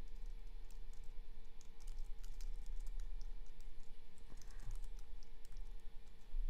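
Typing on a computer keyboard: a quick, irregular run of light key clicks.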